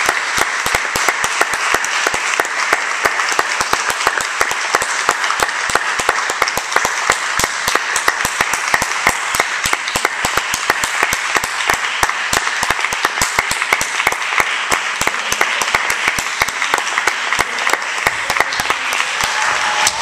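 Audience applauding steadily, a dense, even clapping that holds through the whole stretch.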